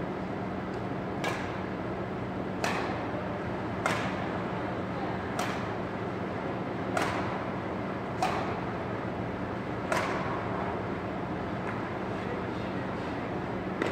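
Badminton rally: rackets strike the shuttlecock seven times, one sharp crack about every second and a half with a short hall echo after each, over a steady hum. The hits stop about ten seconds in.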